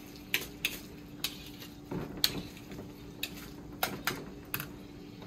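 A utensil clacking against a pot while boiled potatoes are mashed: about ten sharp, irregular knocks, with a small cluster about two seconds in.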